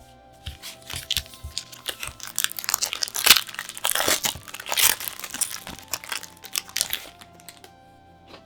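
Trading card packaging being crinkled and torn open by hand: a dense run of plastic and foil crackling that is busiest in the middle and dies away near the end.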